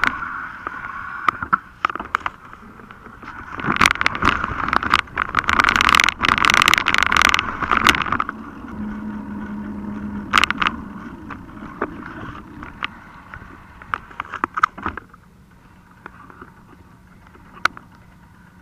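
Mountain bike ridden over rough ground, heard through a handlebar-mounted action camera: the bike and camera mount rattle and knock with each bump over rushing noise. It is loudest in the middle and quietens over the last few seconds as the bike rolls onto sand.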